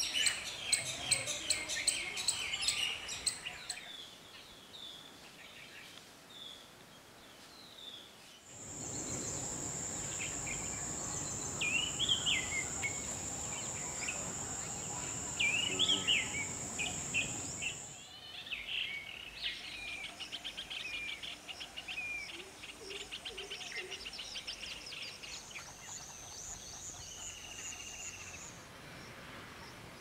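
Wild birds calling and chirping, with a fast run of high chirps in the first few seconds. From about 8 to 18 seconds a steady high-pitched insect drone and a wider hiss run under the calls. More rapid chirps and a repeated high call follow.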